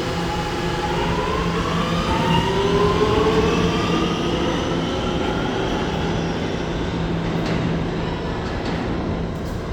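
New York City subway train running, with a steady rumble and low hum, while the motor whine rises in pitch over the first few seconds as the train picks up speed.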